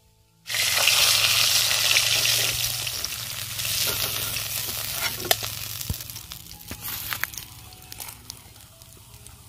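Pangas fish pieces sizzling in hot mustard oil in a metal kadai; the sizzling starts suddenly about half a second in and slowly dies down as the fried pieces are lifted out, with a few sharp clinks of the metal slotted spoon against the pan.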